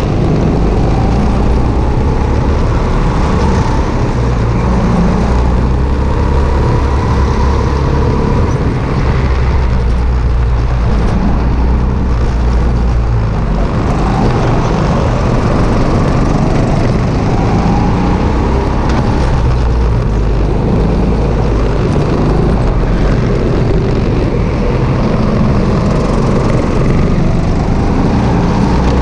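Sodikart RT8 rental kart's engine running hard at racing speed, its pitch rising and falling again and again as it accelerates and backs off, heard from a camera mounted on the kart body with a heavy low rumble.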